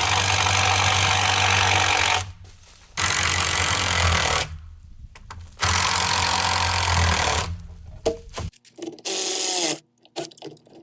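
DeWalt DCM575 brushless battery chainsaw cutting into a tree trunk in three loud bursts of about two seconds each, the motor running at a lower note between them, then stopping about eight and a half seconds in.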